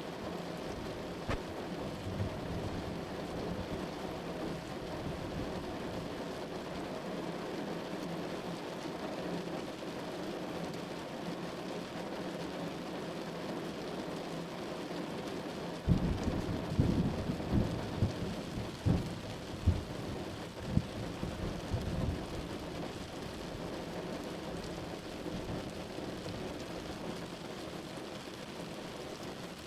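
Steady rain, with a roll of thunder a little past halfway: a low rumble with several sharp cracks that lasts about six seconds before the rain alone carries on.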